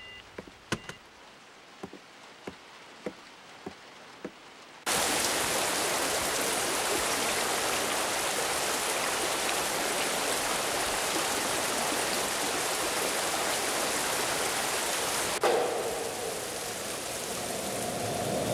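Light clicks about twice a second, then heavy rain starting abruptly about five seconds in and falling steadily. Near the end the rain turns softer, with a steady hum under it.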